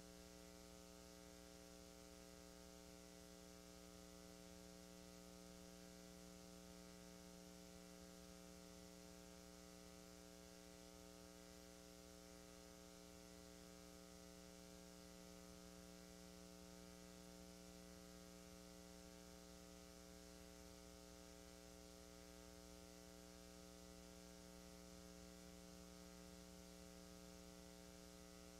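Near silence: a faint steady mains hum on a blank stretch of videotape.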